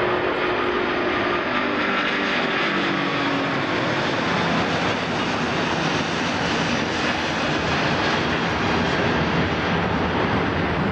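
Airbus A380's four Rolls-Royce Trent 900 turbofan engines at takeoff power as it lifts off and climbs out: a steady, loud jet noise, with faint tones sliding down in pitch over the first few seconds.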